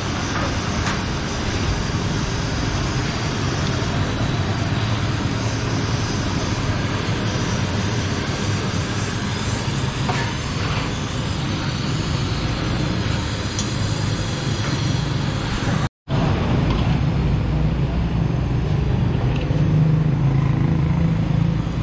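Steady street noise with a low traffic rumble. The sound drops out for a moment about sixteen seconds in, and the rumble is stronger after.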